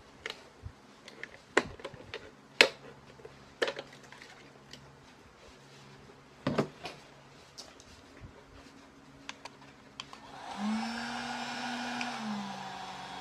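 Scissors snipping and clicking on thin milk jug plastic, in scattered sharp snips with handling noise; the loudest comes about two and a half seconds in. About ten seconds in a heat gun is switched on and keeps running with a steady blowing whir, its motor hum rising as it spins up.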